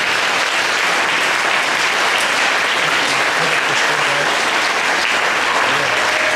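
Audience applauding steadily: dense, even clapping from a large crowd in an auditorium.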